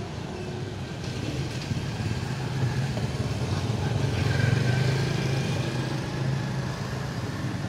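Steady low engine hum of road traffic, swelling about four seconds in as a vehicle passes.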